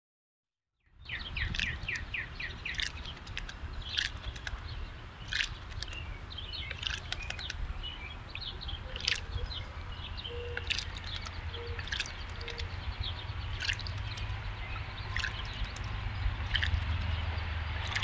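Wild songbirds chirping and calling, short sharp notes scattered throughout, beginning with a quick run of chirps about a second in, over a low steady rumble.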